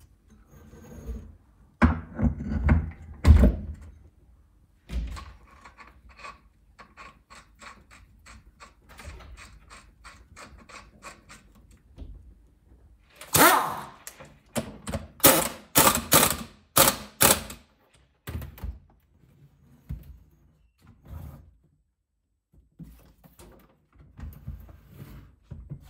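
Scooter rear wheel being handled and fitted onto a bare Honda Dio engine's axle: a few heavy thunks, then a long run of evenly spaced light metal clicks, then a cluster of loud sharp clacks.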